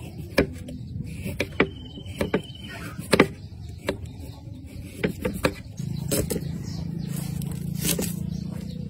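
Kitchen knife chopping ginger and then green onion stalks on a thick wooden chopping block: uneven, sharp taps of the blade striking the wood. A steady low hum comes in about six seconds in and runs on underneath.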